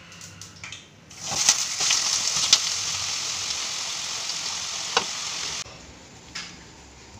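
Washed, cut potatoes for aloo bhaja sizzling loudly in hot oil in a pan. The sizzle starts about a second in, has a few sharp clicks inside it, and cuts off suddenly a little after five seconds.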